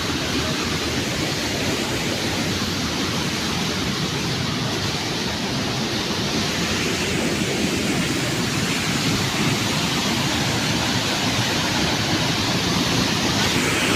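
Waterfall running very full, a loud steady rush of water that grows slightly louder near the end.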